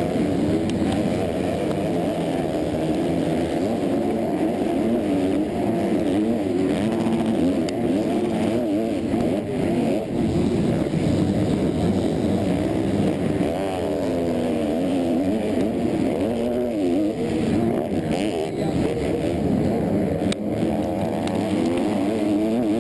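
Motocross race bike's engine revving hard through the gears at racing speed, its pitch climbing and dropping again and again, with other bikes of the pack running close by.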